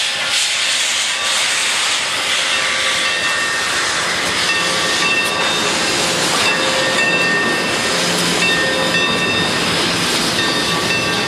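Model Santa Fe steam locomotive's sound system giving out a steady steam hiss as it runs past on the layout's track.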